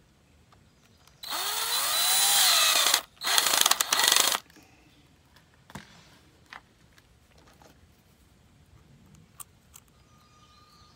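Power drill running in two bursts, about two seconds and then about one second, its motor pitch rising in the first. A few light clicks and knocks follow.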